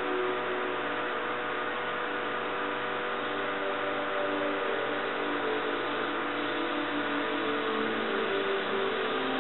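Oxy-acetylene welding torch burning with a steady hiss, its flame adjusted to a thin, pointed flame.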